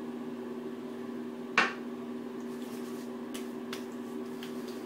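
A steady low room hum, with one sharp knock about a second and a half in and a few faint taps after it as aftershave is patted onto the neck with the hands.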